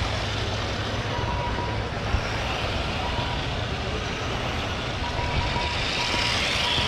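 Steady background noise of RC cars racing laps around an oval track, with short electronic beeps of one pitch coming at uneven intervals.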